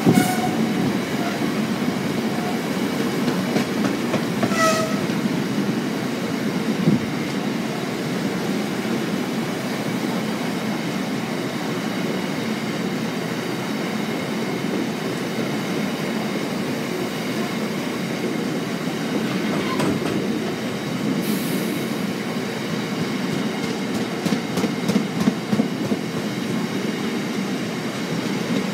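A freight train of covered bogie hopper wagons rolling past close by: a steady rumble of wheels on rail, with a run of sharp wheel clicks over rail joints near the end.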